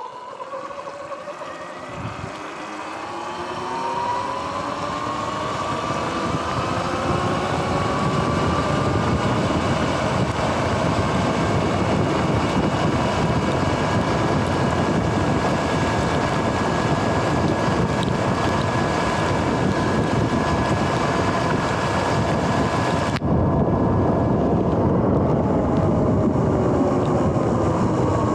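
Sur-Ron X electric dirt bike's motor whining under way: the whine rises in pitch over the first few seconds as the bike speeds up, holds steady at cruising speed, and begins to drop near the end as it slows. Wind buffets the microphone throughout.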